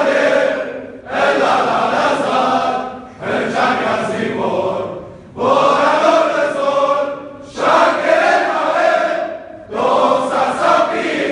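A group of voices singing together as a choir, in phrases about two seconds long separated by brief pauses.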